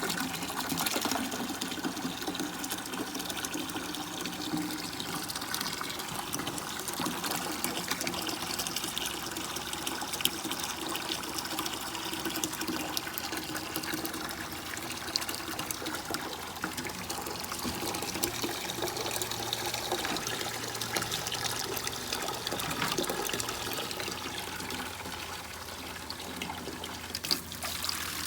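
Water pumped out of a hose by a small pump, running and splashing steadily.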